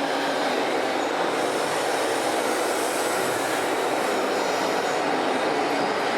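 Radio-controlled model trucks and construction machines running: a steady mechanical whir of small motors and gearing.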